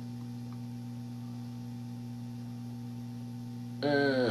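Steady low electrical mains hum at an even level, with a brief spoken word near the end.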